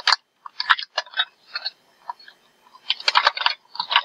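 Small plastic makeup containers clattering and clicking together as a hand rummages through a pile of cosmetics, in several short flurries of sharp knocks, the busiest about three seconds in.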